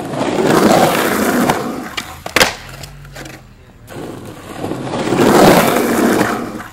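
Skateboard wheels rolling on rough asphalt. The rumble swells and fades twice as a board rolls close, with one sharp clack a little over two seconds in.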